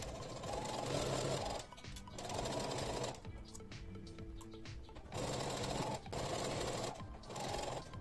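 Brother Innovis electric sewing machine stitching in short runs of about a second each, stopping and starting about five times.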